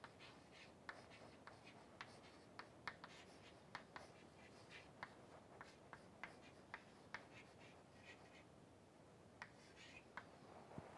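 Chalk writing on a chalkboard: faint, irregular sharp taps as the chalk strikes the board, with a few short scratches as letters are drawn.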